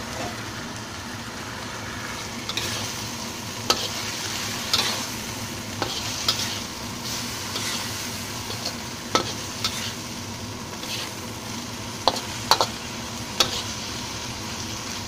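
A stir-fry of bean sprouts, tofu and pork sizzling steadily in a wok while it is tossed, with a metal turner clanking and scraping sharply against the wok several times.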